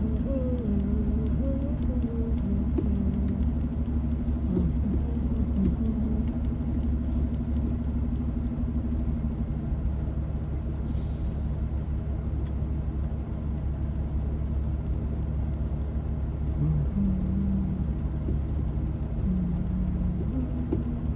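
Steady low rumble of a car being driven through city traffic, heard from inside the cabin.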